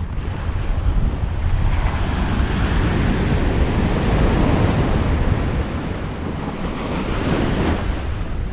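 Small ocean waves breaking and foam washing up the sand at the shoreline, with wind buffeting the microphone. The wash swells a couple of seconds in and again shortly before the end.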